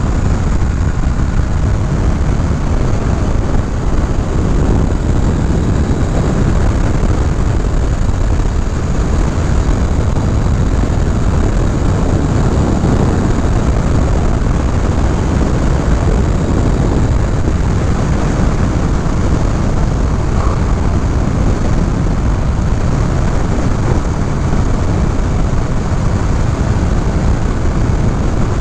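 Riding wind rushing over the microphone, mixed with a Honda CBR500R's parallel-twin engine running at road speed: a steady, loud rush with no pauses.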